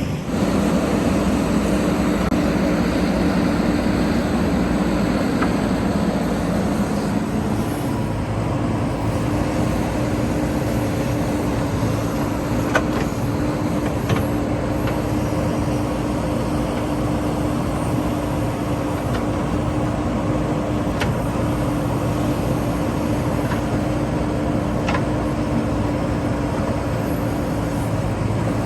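JCB 3DX backhoe loader's diesel engine running steadily with a constant drone; its low note changes about seven seconds in.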